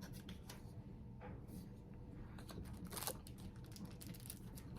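Soft, irregular clicks and light rustles of small objects and packaging being handled during an unboxing, with a louder rustle about three seconds in.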